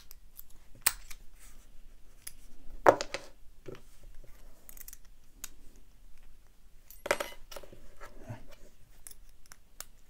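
Small metallic clicks of a pick and tension tool working in an American Lock 1100 padlock. Two louder bursts of clatter, about three and seven seconds in, the first the loudest, come as padlocks and tools are handled on the table.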